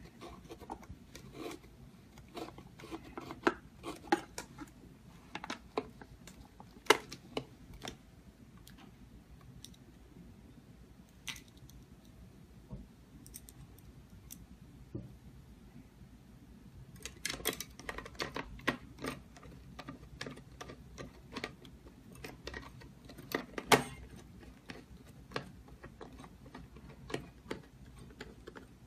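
Scattered clicks and knocks of keypad door lock parts being handled and fitted, in two busy clusters with quieter handling between.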